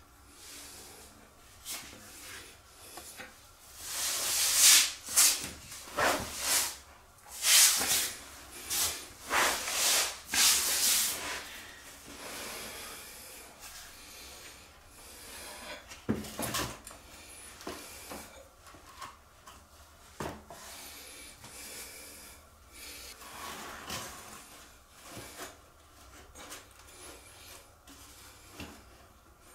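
Rubbing and scraping of a plastic shower water-dam strip being handled and slid over a tiled floor, in a run of loud rasping bursts from about four to eleven seconds in, then softer, scattered rustles and scrapes.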